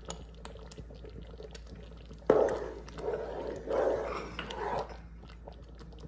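Metal spatula stirring thick, milky gajrela (carrot and rice pudding) in a steel pot. A few wet, gloopy strokes start about two seconds in and stop about a second before the end.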